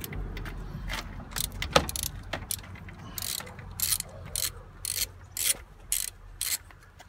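Socket ratchet with a 10 mm socket on an extension, clicking in short bursts about two or three times a second as it is swung back and forth, backing out a thermostat housing bolt that comes loose easily.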